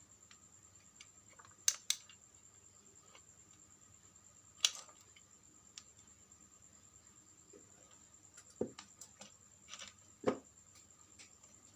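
Scattered clicks and taps of small tools and plastic parts being handled, over a faint steady high-pitched whine.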